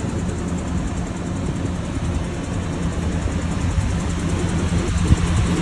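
1967 Ford Thunderbird's V8 engine idling steadily, with its fuel supply no longer restricted.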